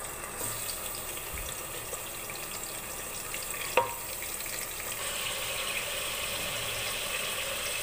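Shank meat sizzling in hot oil in a pressure cooker: a steady frying hiss that grows a little louder about five seconds in, with a single sharp clink a little before.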